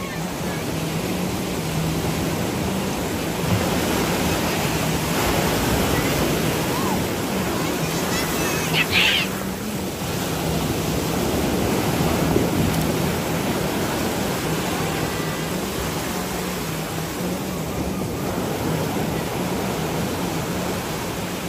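Sea surf washing ashore in a steady rush of noise, with a faint low hum under it. A brief high-pitched sound about nine seconds in.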